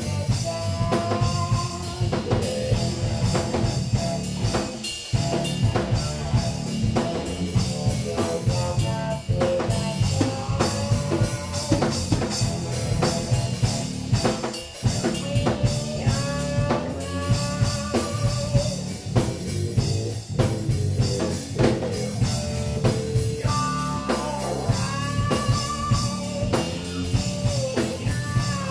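Funk rock band playing live: a hollow-body electric guitar plays a melody of bent, wavering notes over electric bass and a drum kit keeping a steady beat. The band briefly drops out twice, about five seconds in and about halfway through.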